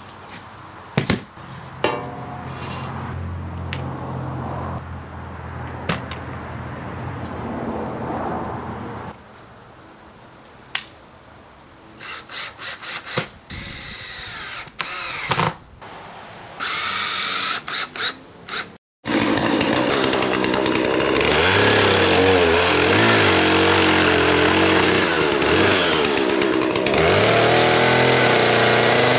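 A low steady hum with a few sharp knocks, then a cordless drill run in short stop-start bursts, its pitch rising as it spins up. About twenty seconds in, a gas chainsaw starts cutting into a log and runs loud and steady to the end.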